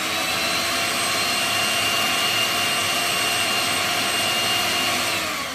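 Electric hand mixer with whisk attachments running steadily on its lowest setting, a loud motor whine, as it beats egg whites in a bowl toward soft peaks. The motor winds down near the end as it is switched off.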